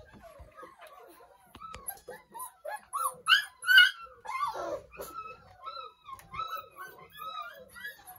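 31-day-old Doberman pinscher puppies whimpering and yipping: a quick, continual run of short high cries, loudest about three to four seconds in.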